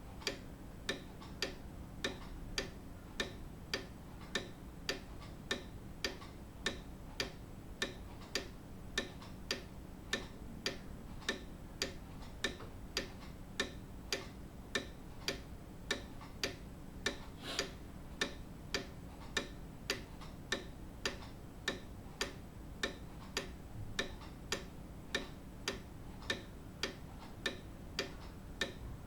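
Grandfather clock ticking, an even, regular tick-tock of sharp clicks at about two a second.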